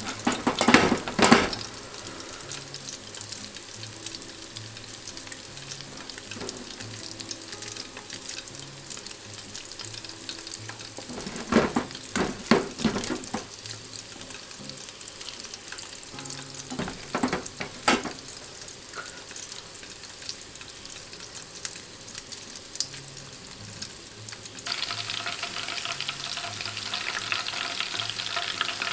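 Chicken tsukune meatballs sizzling in hot oil in a pan, a steady hiss broken three times by short bursts of clattering as they are stirred or turned. Near the end the sizzle grows louder and brighter.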